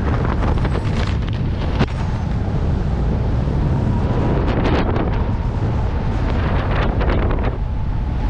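Loud, steady wind rushing over a helmet camera's microphone in skydiving freefall, with gusty buffeting. A faint steady tone sits under it from about two seconds in.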